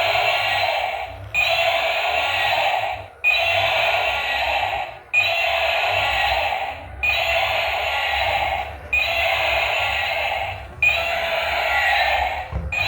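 A battery toy vehicle's electronic sound effect played through its small speaker: the same phrase repeats about every two seconds, with a short break between repeats.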